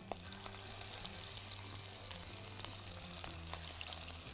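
Chicken skin frying in its own fat in a pan, a steady sizzle with small scattered crackles as the skin crisps.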